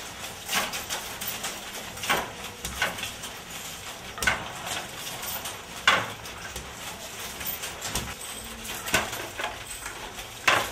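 Wooden handloom clacking as it weaves silk: sharp knocks of the beater and shuttle at uneven intervals of a second or two.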